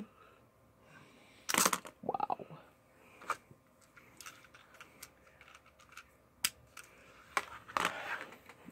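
Light clicks and knocks of a small plastic toy figure being handled and set down on a laptop lid, the loudest a sharp knock about one and a half seconds in.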